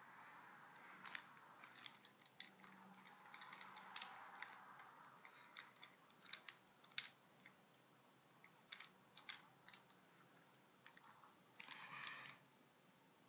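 Faint, irregular plastic clicks and clacks of Rubik's cubes being picked up, turned over and set down by hand during inspection, with a short scrape-like burst near the end.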